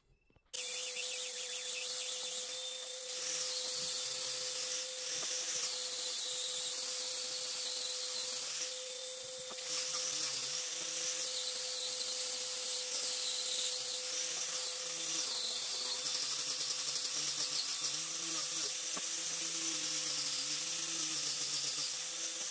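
Corded handheld electric power tool running steadily against the edge of a teak board, a high hiss over a steady motor whine, starting abruptly about half a second in.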